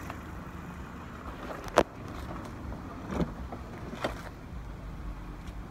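A 2011 Ford Fiesta's 1.6-litre four-cylinder engine idling steadily, with a sharp click a little under two seconds in and two softer knocks later.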